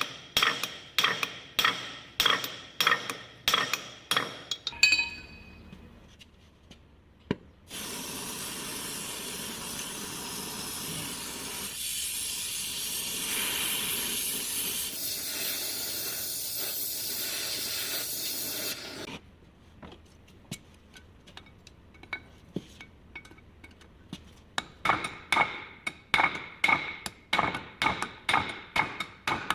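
Hammer blows on metal, about two a second, each strike ringing, for the first few seconds and again near the end. In between, a steady hiss runs for about eleven seconds and then cuts off suddenly.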